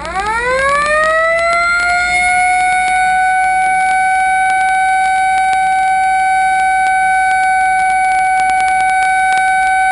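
Shipboard warning siren on an Arleigh Burke-class destroyer winding up in pitch over about a second and a half, then holding a steady wail: the launch warning sounded just before a Tomahawk missile leaves the ship.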